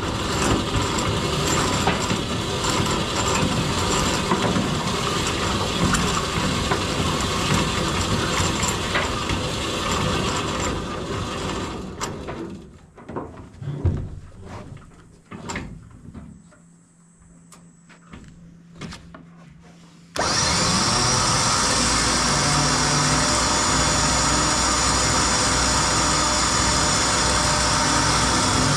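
Busy clatter of tools and hardware, then scattered knocks and clicks. About two-thirds of the way in, a Warn M12000 winch's newly fitted genuine Warn electric motor starts abruptly and runs steadily with a high whine.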